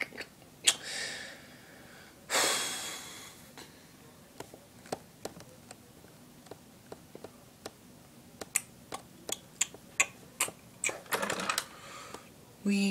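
Scattered clicks of a computer keyboard and mouse, a few every second at times, with a couple of loud breaths or sighs. Near the end a hummed voice starts, falling in pitch.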